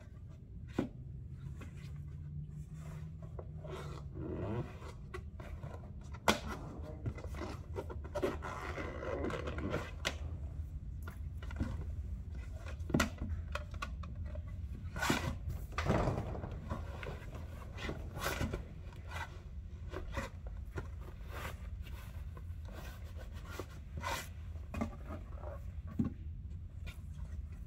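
Rubber boots being handled, pulled on and set down on a concrete floor: scuffing and rubbing of rubber, with a scattering of knocks, over a steady low hum in the background.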